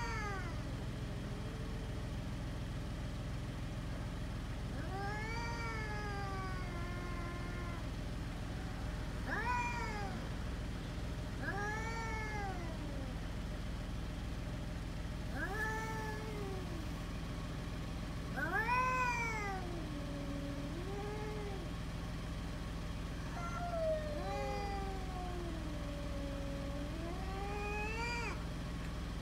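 Cats yowling at each other in a territorial standoff: a series of long, wavering caterwauls that rise and fall in pitch, one every few seconds, some stretched over several seconds.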